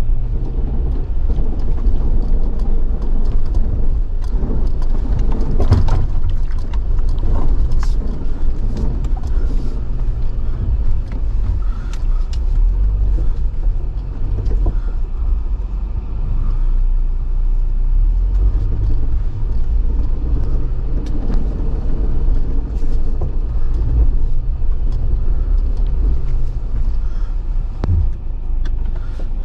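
Jeep Wrangler crawling along a rocky off-road trail: a steady low engine rumble with scattered knocks and clatters.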